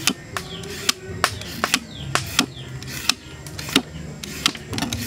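Julienne peeler scraping down a raw carrot in quick repeated strokes, each a crisp rasp as it cuts off thin strips, about three a second at an uneven pace.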